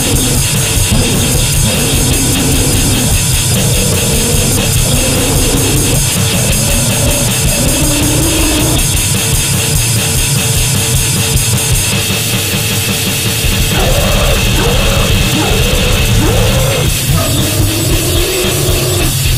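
Gore noise / goregrind music: a loud, dense, distorted wall of noise with a fast, even pulse and wavering, sliding tones in the middle. About twelve seconds in, the high hiss thins out.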